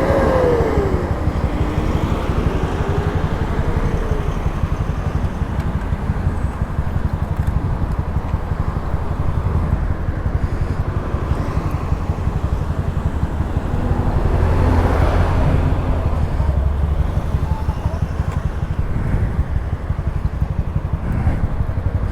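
Steady low road and engine rumble from a vehicle stopped at the roadside. A police car siren's wail slides down and back up in the first few seconds, then fades.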